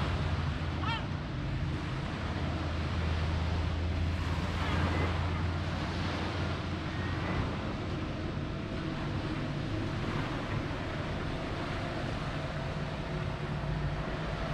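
Seafront street ambience: a low, steady engine hum from road traffic through the first half, over a continuous wash of surf and wind noise on the microphone.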